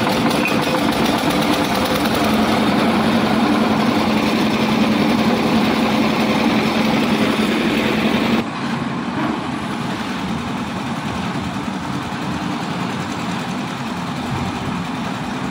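Single-cylinder diesel engine of a concrete mixer running steadily up close. About eight seconds in the sound cuts to quieter, steady machinery noise from the mixer and lift working at a distance.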